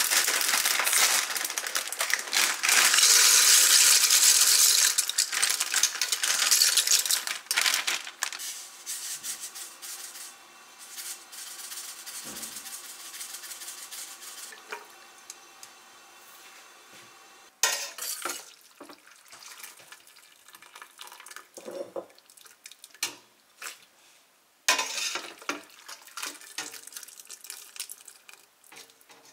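Dry elbow macaroni is poured into a stainless steel stockpot of water, a loud rattling rush that lasts the first several seconds. Quieter scrapes and clinks of cooking follow. In the second half, sharp clatters and clinks of a metal slotted ladle come as it scoops cooked macaroni out of the pot into a bowl.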